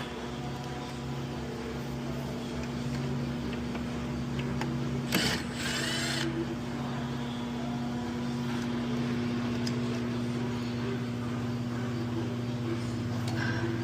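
Steady low hum, like a shop fan, throughout, with a power tool running briefly, for about a second, roughly five seconds in.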